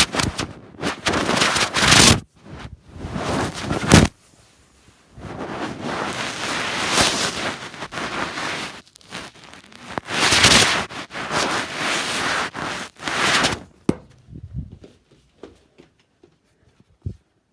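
Loud rustling and scraping noise in several bursts of one to four seconds each, with gaps between them, then a few faint clicks near the end.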